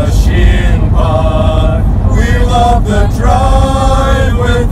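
A mixed group of men and women singing together in a mock-operatic chorus, holding long notes that shift in pitch every second or so. Underneath runs the steady low rumble of the van they are riding in.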